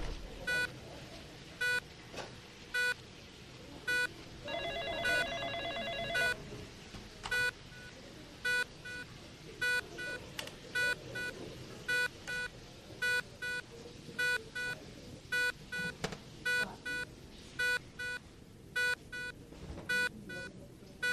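Hospital ward ambience: short electronic equipment beeps at one steady pitch, repeating irregularly a little more than once a second. A telephone gives one trilled ring about four and a half seconds in, lasting about two seconds.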